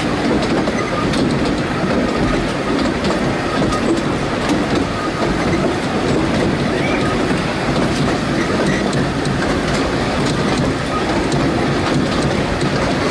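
A narrow-gauge railway carriage running along the track, heard from an open carriage window: a steady rumble of wheels on rail with faint, irregular clicks over the rail joints.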